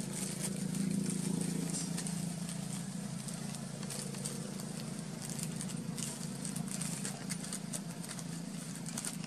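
Crinkling and rustling of a plastic bag and cloth as a baby monkey paws and rummages through them, in quick irregular crackles, over a steady low hum.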